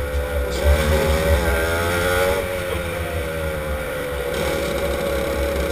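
Racing kart engine running at low, fairly steady revs as the kart rolls slowly along, its note dipping a little in the middle and picking up again, over a heavy low rumble.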